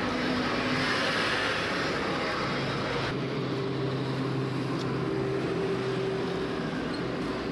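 Street traffic with a double-decker bus driving past close by: a steady rush of road noise with the bus engine running underneath.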